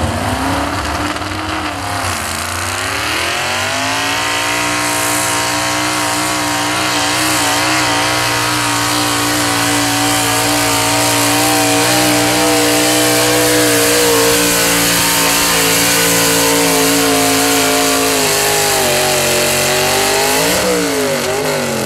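Small-block Ford V8 of a 1970s Ford 4x4 super stock pulling truck at full throttle, dragging a weight-transfer sled. The revs dip and then climb in the first few seconds, hold high and steady for most of the pull, then drop and waver near the end as the pull winds down.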